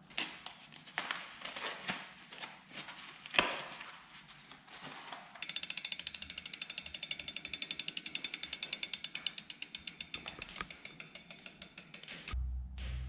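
Freehub of a Commencal Supreme DH mountain bike's rear wheel ticking fast and evenly as the wheel spins freely. It follows a few seconds of irregular knocks and rustles, and music comes in near the end.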